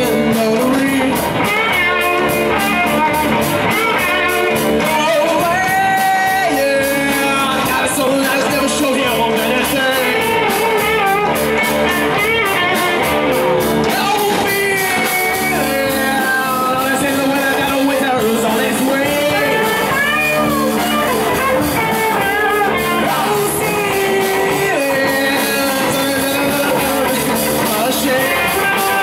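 Live rock band playing: two electric guitars, bass guitar and drum kit, with a young male lead vocalist singing over them.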